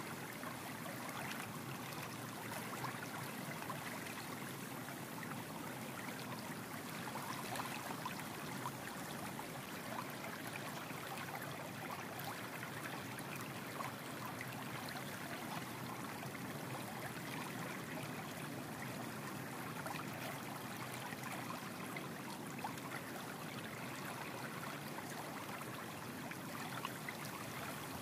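A steady, even rushing noise like running water, with a few faint ticks scattered through it.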